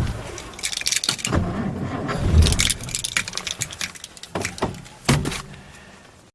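Irregular metallic clicks and rattles from someone handling the car, with a dull low thump about two and a half seconds in.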